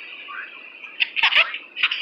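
A baby squealing in short, high-pitched bursts, loudest in the second half, with a few light knocks.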